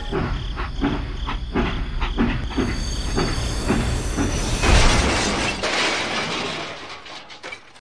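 Battery-powered toy steam train running on plastic track, clicking evenly about three times a second over a hiss. About five seconds in comes a loud crash as it knocks a toy tractor over on the crossing, fading away afterwards.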